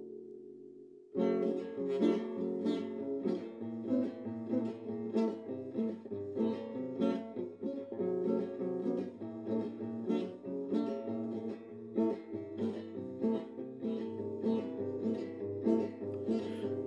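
Instrumental intro of a modão-style sertanejo song on acoustic guitar. A chord rings out and fades; then, about a second in, a lively picked melody starts over low bass notes.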